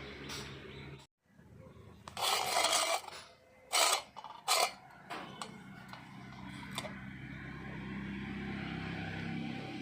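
A few short, loud scraping strokes, the first nearly a second long and the next two briefer, against a steady low hum. The sound cuts out abruptly about a second in.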